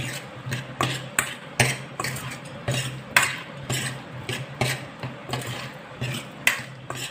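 A steel spoon stirring a thick, cooled mix of fried shallots, tomato and spice powder in a pan, off the heat. It scrapes and knocks against the pan in irregular strokes, about two a second.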